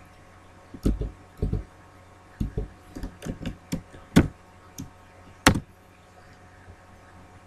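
Computer keyboard keystrokes: about a dozen short, sharp key strikes in uneven runs of typing, ending with one harder stroke about five and a half seconds in.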